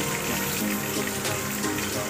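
Oil sizzling and crackling in a frying pan as small hilsa fish are lightly fried, with background music playing over it.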